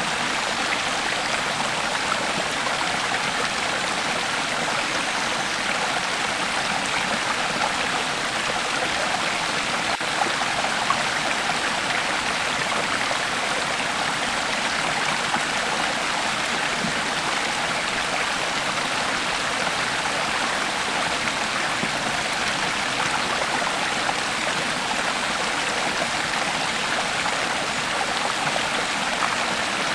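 Creek water flowing steadily over stones, an even rushing burble with no change in level.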